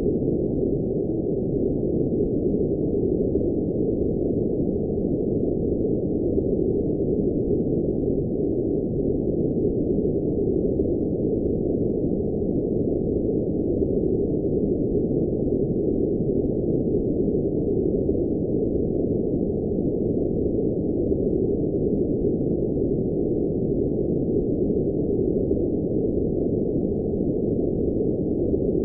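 Steady generated noise, billed as blue noise, running without change. It is a dull, muffled rush with no high hiss at all: the sound is cut off sharply above the low-middle range.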